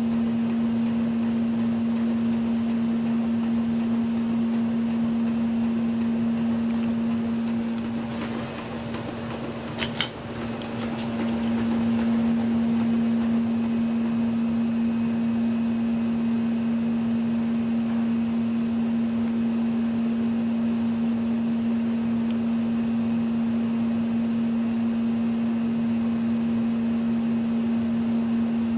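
1987 Lasko 3600L ceiling fan running with a steady low motor hum. The hum fades briefly about eight seconds in, there is one sharp click at about ten seconds, and then the hum comes back to full level.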